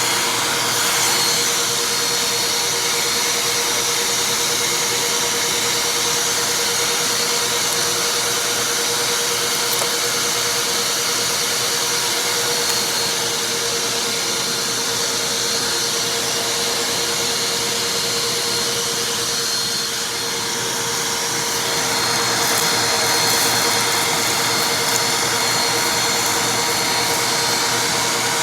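Vacuum cleaner running steadily with a constant hum, with a few faint ticks and a brief dip in level about twenty seconds in.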